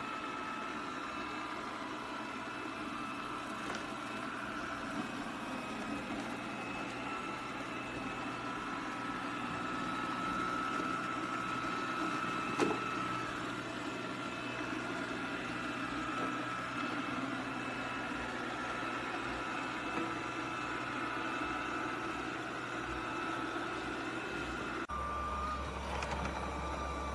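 BPMIO robot vacuum and mop running while it cleans: a steady motor hum with a high whine, and a single knock about halfway through. Near the end the sound shifts abruptly and a low hum comes in.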